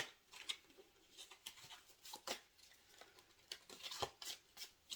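A deck of tarot cards being shuffled by hand: faint, irregular clicks and slaps of cards against each other, a few a second.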